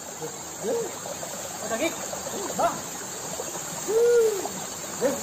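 A series of short hooting calls, each rising and falling in pitch, with the longest and loudest about four seconds in, over a steady high hiss.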